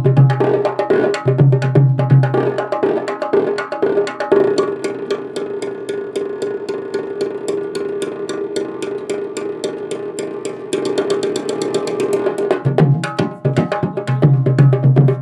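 Nagara kettle drums beaten with sticks in a fast, dense stream of strokes. A deep ringing drum tone sounds under the strokes in the first few seconds, drops away while lighter, higher strokes carry on through the middle, and returns about two seconds before the end.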